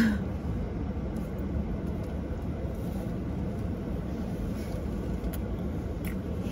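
Steady low rumble of a car, heard from inside the cabin, with a short vocal sound from the person eating right at the start.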